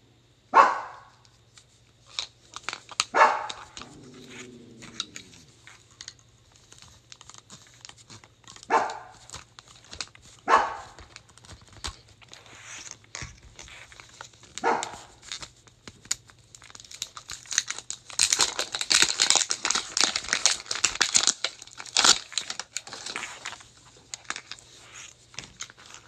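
A small pet dog barks about five times, spaced out over the first fifteen seconds. Then plastic shrink-wrap crinkles and tears for several seconds as it is peeled off a Mini Brands capsule ball.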